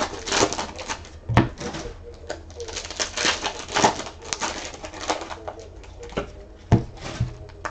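Sports trading cards and foil-wrapped packs being handled on a table, an uneven run of rustling and crinkling. Two sharp thumps, about a second and a half in and near the end, as something is set down on the table.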